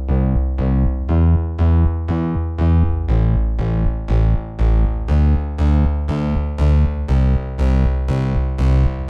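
Background music: a synthesizer-style keyboard playing a steady pulse of ringing notes, a little over two a second, over a deep bass.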